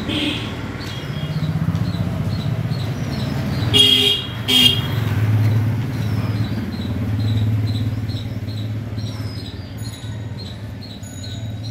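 Street traffic with motorbike engines running past, the hum swelling and fading. A vehicle horn toots twice in quick succession about four seconds in, the loudest sound.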